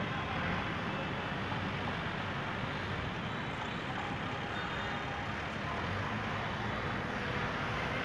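Passenger train running away down the track: a steady, even rumble, with general traffic noise underneath.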